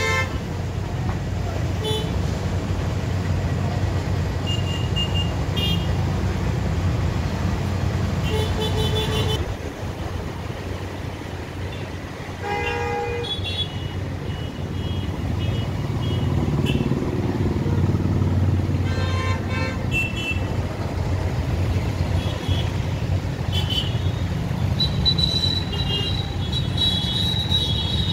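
Road traffic of auto-rickshaws, motorcycles and cars: a steady engine and tyre noise with many short horn toots, some overlapping, and a longer horn near the end.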